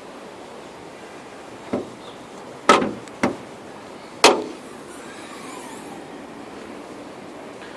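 Car body being handled while the hood is opened: a light knock, then three loud metallic clunks over the next few seconds, the last ringing briefly.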